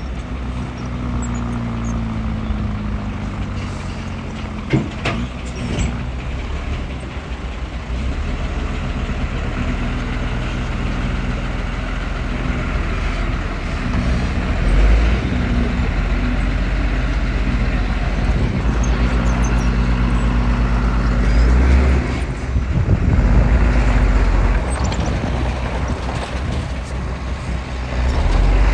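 Heavy diesel earthmoving machinery running steadily, the engine note dipping and swelling with load, with two sharp metallic knocks about five seconds in.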